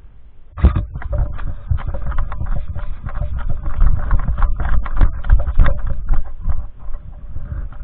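A fast, irregular run of knocks and thuds over a heavy low rumble, a few strikes a second, starting about half a second in.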